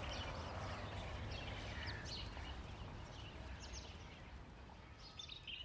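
Birds chirping in short scattered calls over a low, steady outdoor rumble, the whole ambience slowly fading out.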